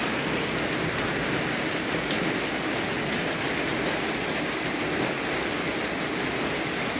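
Steady, even rain-like hiss with faint ticks scattered through it.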